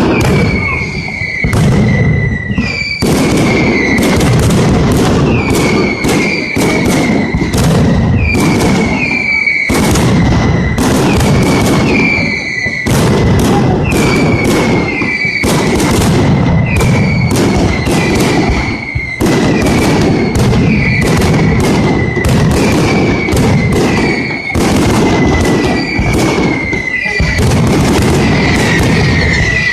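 Mascletà firecracker barrage: a dense, loud, unbroken run of sharp blasts, several a second, with a high whistling tone running beneath them.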